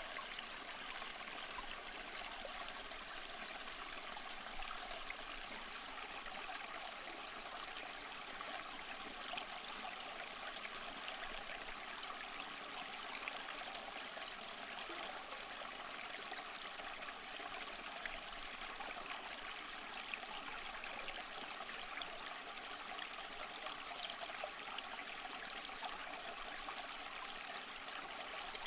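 A small stream running and trickling, as a steady, even water sound without pauses or distinct splashes.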